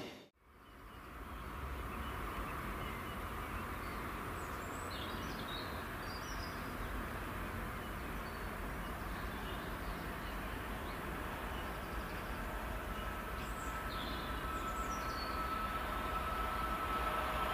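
Steady lineside background noise with short bird chirps now and then; from about twelve seconds in a thin steady whine grows slowly louder as a train approaches. A louder train sound cuts off suddenly at the very start.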